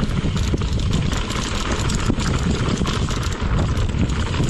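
Mountain bike riding down a rough trail: tyres rolling over dirt and rocks and the bike rattling, a steady rumble full of quick clicks.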